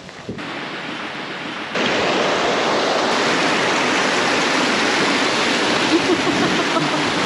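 Rushing mountain stream pouring over rocks, a steady loud rush of white water that cuts in abruptly under two seconds in, after a fainter stretch.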